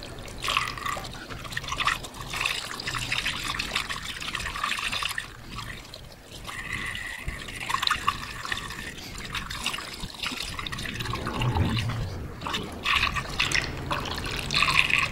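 Premixed engine coolant pouring from a plastic gallon jug through a funnel into a mini excavator's radiator, refilling the drained cooling system.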